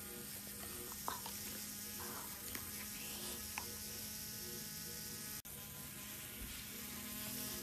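Faint steady motor-like hum with a soft hiss and a few light clicks.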